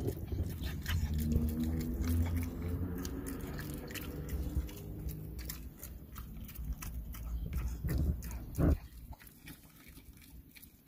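Dog chewing a dried pig ear, with repeated crunches and clicks of teeth on the hard treat. A low hum sounds under the chewing for the first few seconds, and a single thump comes about two-thirds of the way through.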